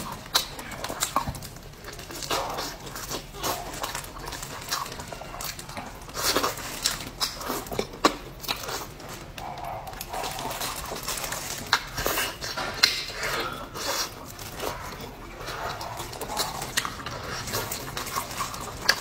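Close-miked mukbang eating sounds: wet chewing, lip smacking and sucking in quick, irregular smacks and clicks.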